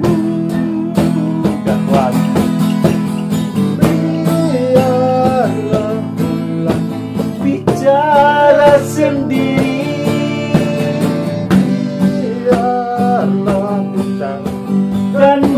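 Acoustic guitar being strummed, with a man singing an Indonesian pop ballad along with it.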